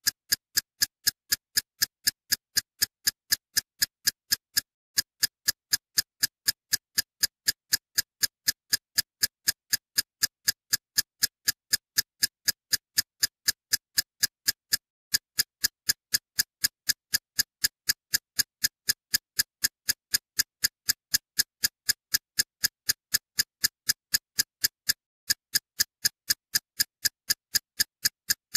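Steady rhythmic ticking soundtrack, sharp clicks about three a second, with a brief skipped beat roughly every ten seconds.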